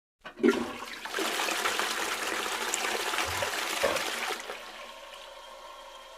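A click, then a rush of water for about three and a half seconds that dies away to a faint hiss.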